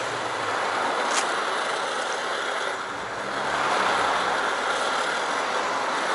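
A pressurised kerosene camp stove burning with a steady rushing roar, its burner still not fully warmed after the alcohol preheat. There is a sharp click about a second in, and the roar gets a little louder about three and a half seconds in.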